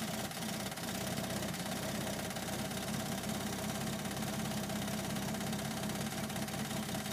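1951 Willys Jeep engine running steadily, with a low, even pulse.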